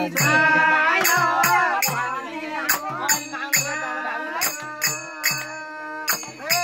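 Devotional bhajan music: voices singing over a hand drum beating a steady rhythm, about two to three beats a second, with jingling percussion on the beats. The singing is strongest in the first couple of seconds and then drops back under the drum.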